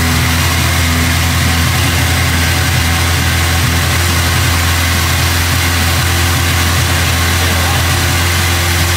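1983 Suzuki Katana GSX1100's air-cooled inline-four engine idling steadily on its first start after a full rebuild, with its choke sticking slightly.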